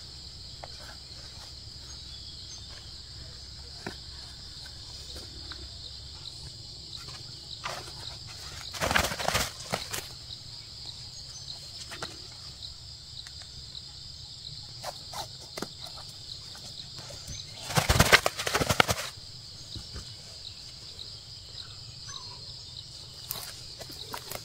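A captured fowl flapping its wings hard while held in the hands, in two flurries of about a second each, roughly nine and eighteen seconds in, with small rustles of handling between them. Insects buzz steadily throughout.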